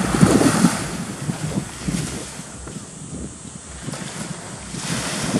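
Small waves washing onto a sandy beach on a nearly flat sea, with wind rumbling on the microphone. The wash is loudest at the start, dies down, and swells again near the end.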